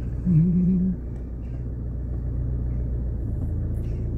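Steady low rumble of a car driving slowly, heard from inside the cabin. Near the start a person hums or sings one short wavering note.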